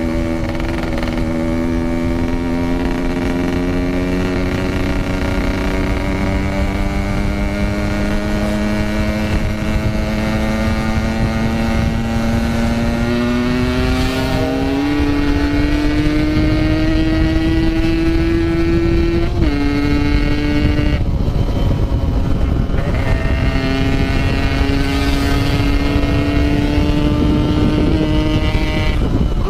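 Yamaha RX-King 135cc single-cylinder two-stroke motorcycle engine under way, its pitch climbing slowly and steadily as the bike accelerates, dropping sharply about two-thirds through, cutting out briefly, then pulling again, with wind rush on the microphone.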